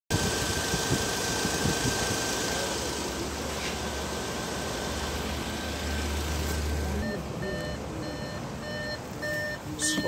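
Audi engine idling with the air conditioning compressor running, a steady running noise, during a cooling check after the AC compressor and condenser were replaced and the refrigerant recharged. About two-thirds of the way in, a car warning chime starts beeping about twice a second over it.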